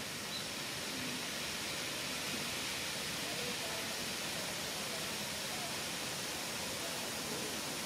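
Steady, even outdoor background hiss with no clear event in it. Only a few faint, indistinct pitched sounds rise above it now and then.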